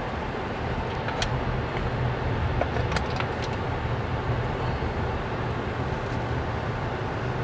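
A car driving, a steady low hum of engine and road noise, with a few light clicks about a second and three seconds in.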